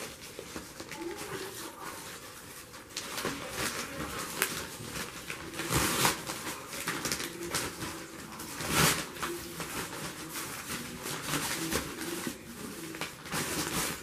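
A ribbed carpet-cleaner hose being coiled and pushed into a fabric storage bag: irregular rustling and scraping handling noise, with louder rubs about six seconds in and near nine seconds.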